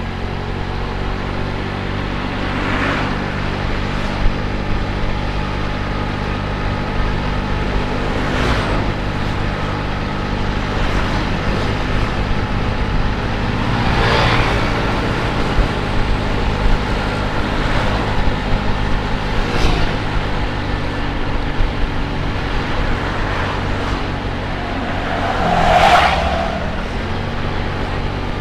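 A small automatic scooter's engine running steadily while riding along a road. Other vehicles pass about five times, each swelling and fading, and the last one near the end is the loudest.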